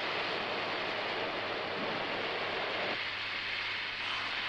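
Molten ferrosilicon running from a tapped ferroalloy smelting furnace, heard as a steady, noisy rush. The lower part of the sound thins out about three seconds in.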